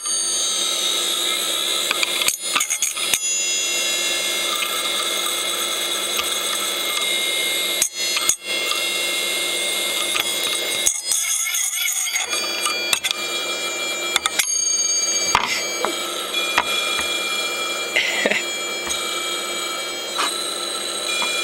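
Old 8 GB hard drive running with its cover off: a steady high-pitched whine from the spinning platter and motor, with scattered clicks and ticks from the read/write head as it keeps copying files.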